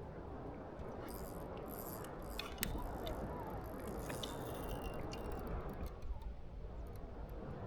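Steady rushing noise of water and wind around a kayak, with scattered small clicks and ticks, the sharpest about two and a half seconds in.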